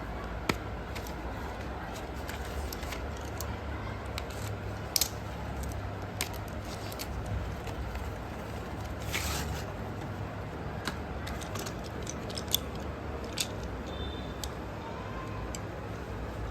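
Unboxing of a parcel of slate pencils: scattered light clicks and taps, with a short rustle about nine seconds in, over a steady low hum.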